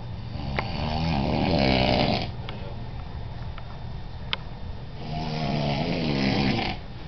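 A man snoring: two long snores about four seconds apart, each lasting close to two seconds, over a steady low hum, with a few faint clicks in between.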